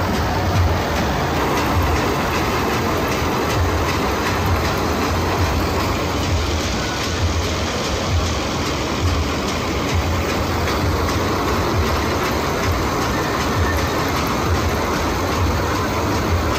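A tiger-themed carnival ride running: its train of linked cars clattering around the track, with a steady low rumble.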